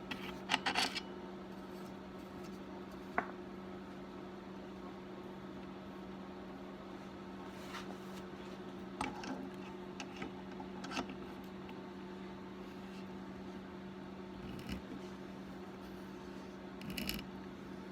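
Thread tap being turned by hand down the bar stud hole of a Stihl 026 chainsaw crankcase: a few faint clicks and scrapes, spaced seconds apart, over a steady low hum.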